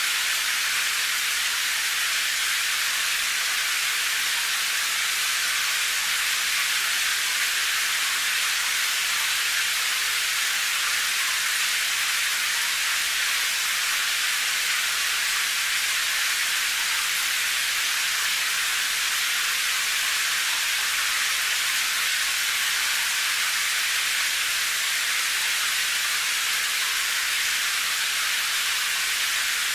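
Steady rain: an even, high-pitched hiss with no separate drops, thunder or changes in level.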